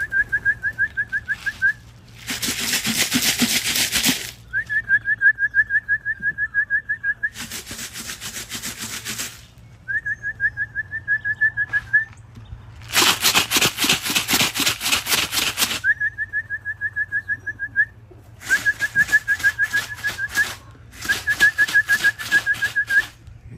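A warbling trilled whistle, held about two seconds at a time, takes turns with bursts of rattling like feed grain shaken in a can, about five of each, the last two together. This is a pigeon keeper calling his homing pigeons down to the loft to feed and trap.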